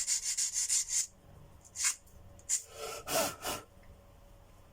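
Fast, even scraping strokes, about eight a second, as a hand tool works the damaged thread of a vacuum cleaner motor shaft; they stop about a second in. A few single scrapes follow, and a squeaky rub about three seconds in.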